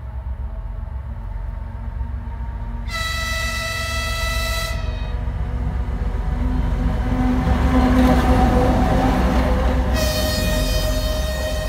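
M62-series diesel locomotive approaching and passing, its two-stroke diesel engine rumble swelling to its loudest about two-thirds of the way through. It sounds two long blasts on its high-pitched horn, about three seconds in and again about ten seconds in.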